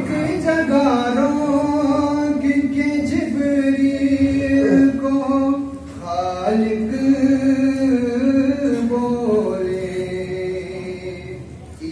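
A male voice chanting an Urdu manqabat (devotional praise poem) unaccompanied, in long held, wavering notes. One phrase ends about six seconds in and a second begins, trailing off near the end.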